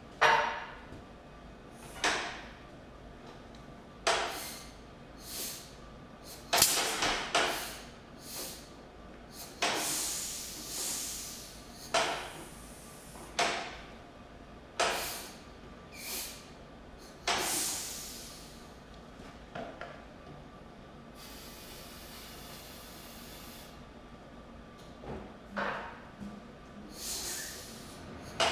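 A string of sharp metallic clanks and knocks, one every second or two, some ringing briefly, with a steady hiss for about three seconds past the middle; the tractor engine is not running.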